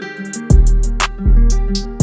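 Background music: a guitar-led track with deep bass hits and a steady drum beat.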